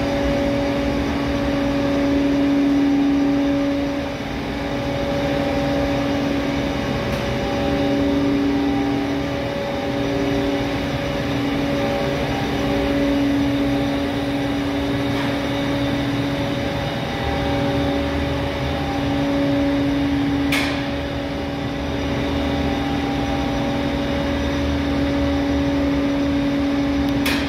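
Atlas Copco ZT 250 VSD-FF oil-free rotary screw air compressor running under load: a steady hum and whine whose level swells and fades a little. A single sharp click comes about twenty seconds in.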